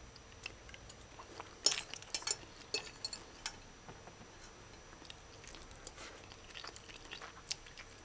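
A person chewing a mouthful of oxtail stew and rice, with scattered sharp clicks of a metal fork against a ceramic plate, the loudest and busiest about two to three seconds in.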